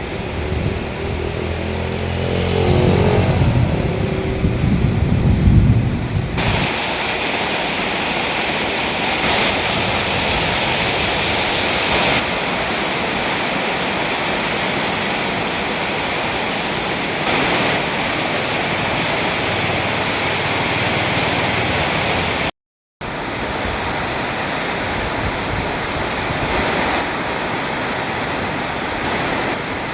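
Heavy rain falling in a steady, even hiss. It opens with a loud low rumble that ends abruptly about six seconds in.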